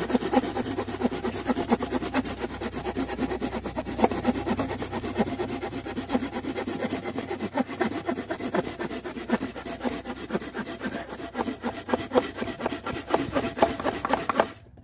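Silky Pocket Boy folding pull saw cutting through a thick wooden board with quick, short back-and-forth strokes. The strokes stop just before the end.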